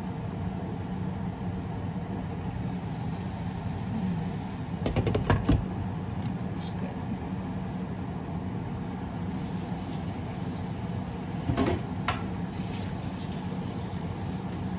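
Covered pot of bitter melon and egg cooking on a gas burner turned up high: a steady hum and hiss of the flame and simmering pan. Two brief clusters of clinks come about five seconds in and again about twelve seconds in.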